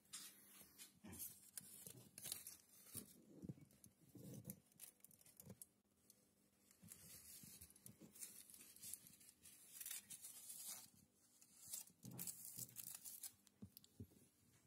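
Faint, irregular rustles and scrapes, the handling noise of a hand-held phone being moved around.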